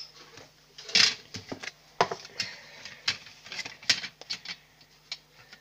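Irregular taps, clicks and scratchy rustles of a pen writing and of things being handled on a table close to the microphone. The loudest knock comes about a second in.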